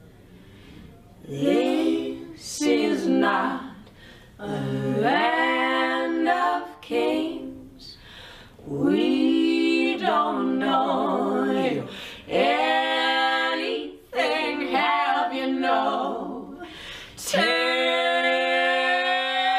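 Unaccompanied singing by women's voices, in short phrases with held notes and brief breaks between them. A long held note begins near the end.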